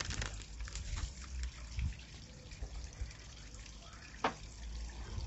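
Water trickling and dripping steadily under a low rumble, with scattered light clicks and one sharper tap about four seconds in.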